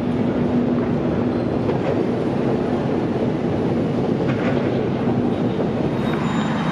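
Steady drone of a metro station concourse beside the escalators, with a low, even hum running under it.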